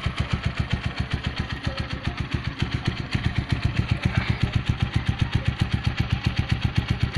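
Gamma 200 motorcycle idling steadily through an Akrapovic carbon fiber muffler with its silencer and dB killer fitted, an even beat of about nine exhaust pulses a second. With the dB killer in, it sounds stock and not noisy.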